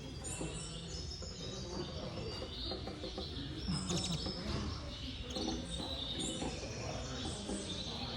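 Many caged canaries chirping and twittering at once, a dense overlapping chatter of short high calls and trills, over a steady low hum of room noise.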